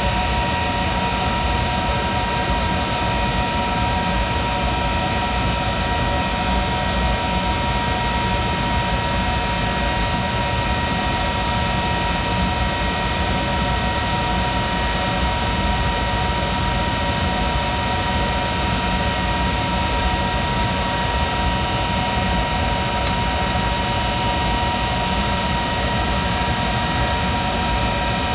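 Monarch 10EE lathe running steadily while turning a part: an even machine hum with a steady high whine, and a few faint ticks.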